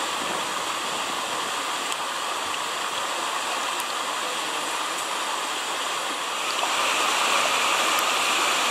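Mountain stream running steadily. About two-thirds of the way in the water sound grows louder as a metal cup is dipped and rinsed and water pours out of it.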